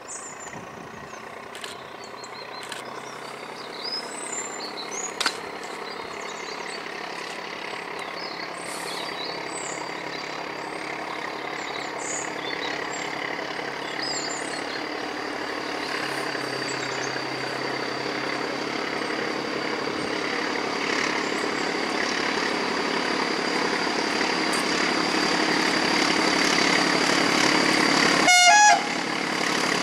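Diesel locomotive hauling a passenger train, its engine growing steadily louder as it approaches, with a short horn blast near the end. Birds chirp over the first half.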